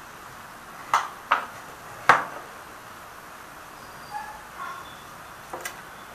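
Sharp metallic knocks from handling a stainless-steel HHO cell plate module and a steel rule as they are set down on a hard surface. There are three knocks between one and two seconds in, the last the loudest, then a few faint clicks near the end.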